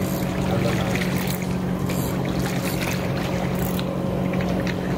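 A motor humming steadily at an even low pitch, with faint scattered ticks and splashes over it.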